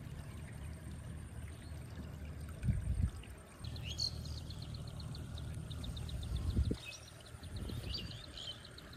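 Outdoor field ambience: a steady low rumble, with grass rustling and a couple of thumps as the grass is handled. From a few seconds in, an insect's rapid, even pulsing chirp goes on, with a few short bird calls over it.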